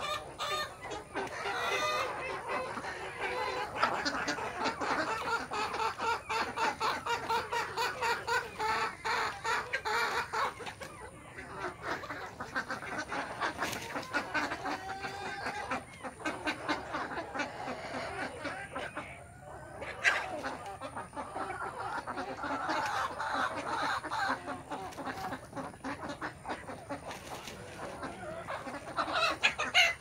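A flock of desi chickens clucking and calling without pause, many birds overlapping. A single sharp knock stands out about two-thirds of the way through.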